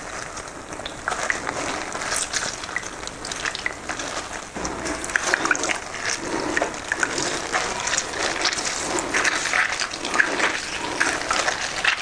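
Lemon halves squeezed by hand in plastic gloves, with juice running and splashing into a bowl of sugary juice and irregular wet squelches of the pulp.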